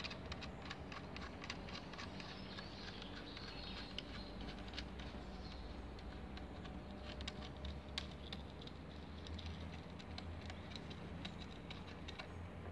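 Faint, scattered small clicks and ticks of hard plastic and small metal fasteners being handled, as the bolt and nut on the plastic cassette mount of a fibre-optic splice closure are worked loose by hand. A faint low steady hum runs underneath.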